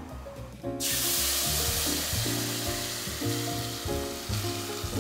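Blended tomato purée poured into a pot of hot oil, setting off a sudden loud sizzle about a second in that then keeps frying steadily, easing a little.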